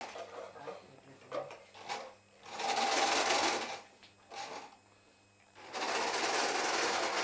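Electric domestic sewing machine stitching in short bursts, the longest about a second long in the middle, with small clicks between. Near the end a steady noise sets in and keeps going.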